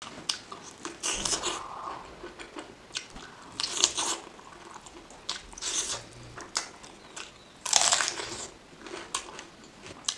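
Close-miked eating of chicken curry and rice: bites and chewing in bursts a second or two apart, with short sharp clicks between, the loudest burst about three-quarters of the way in.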